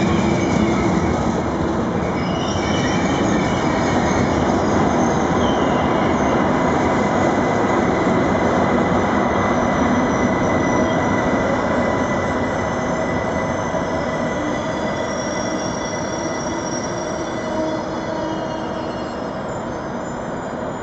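ICE high-speed train rolling slowly through the station. Thin, steady high-pitched wheel squeal rides over the continuous rumble of the cars, and the sound eases off a little near the end.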